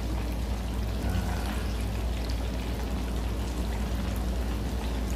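Breaded chicken pieces deep-frying in a stainless steel pot, the oil bubbling and sizzling with a steady dense crackle, over a low steady hum. The pieces are well browned, late in the frying.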